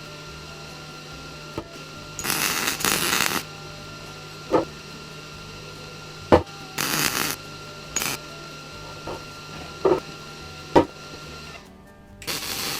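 Steel pieces of a welding table frame knocking and clanking as they are handled, with several sharp ringing knocks and four short bursts of hiss, the longest about a second. A steady electrical hum runs underneath.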